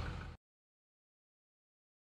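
Outdoor background noise with a low rumble cuts off abruptly less than half a second in, followed by dead silence as the recording ends.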